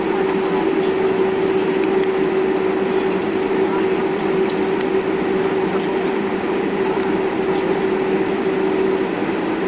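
Boeing 747-400 cabin noise while taxiing: a steady drone from the engines at low power, with a constant hum on one note.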